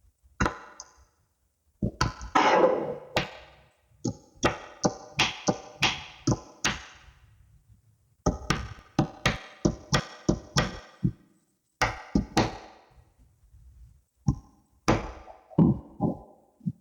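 Small magnetic balls clicking and snapping together as they are handled and arranged: an irregular series of sharp clicks with brief ringing, some in quick runs of about two a second, with short pauses between.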